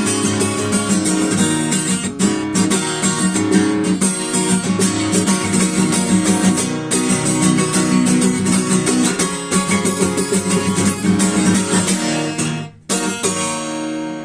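Acoustic guitar strummed in a steady rhythm, playing the song's instrumental ending. Near the end the strumming stops briefly, then one final chord is struck and left to ring.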